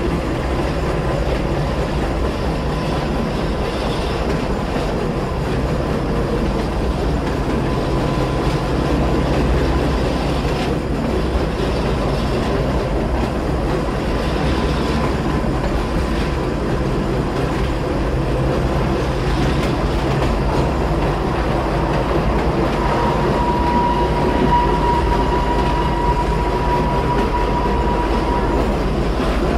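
Gornergrat Bahn electric rack-railway train climbing, heard from inside the passenger car: a steady running rumble with a thin high whine that grows louder for several seconds near the end.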